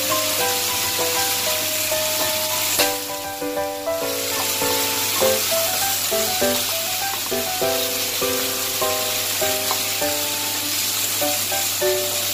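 Vegetables and shrimp sizzling as they are stir-fried in a hot stainless steel pan, tossed with a wooden spatula. A simple melody of background music plays over the sizzling.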